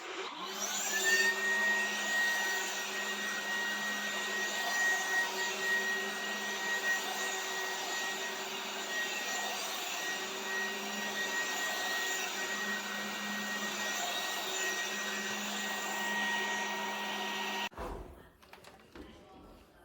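Dreame H12S cordless wet-and-dry vacuum running. Its motor whine rises over the first second to a steady high pitch, holds there, and cuts off suddenly near the end.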